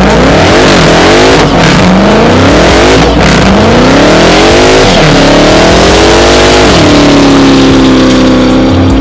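2019 Dodge Challenger Hellcat Redeye's supercharged 6.2-litre HEMI V8 revving hard during a burnout, its pitch rising and falling about four times. It then holds one steady note for the last couple of seconds.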